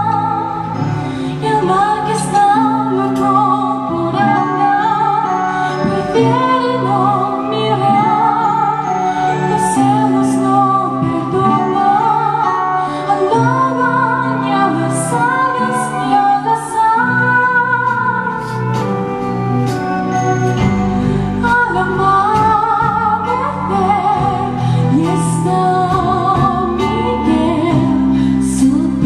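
A woman singing a slow, tender song over instrumental accompaniment. The bass grows fuller about two-thirds of the way through.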